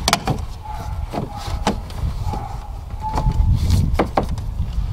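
Hands fitting the plastic air intake tube and a rubber coolant hose under a truck's hood: a string of light plastic clicks and knocks with a few short squeaks, over a steady low rumble.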